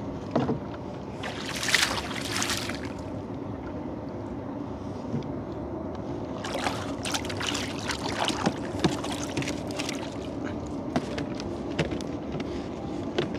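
Small river boat's motor running steadily, with water splashing against the boat and scattered knocks, heaviest about two seconds in and again around the middle.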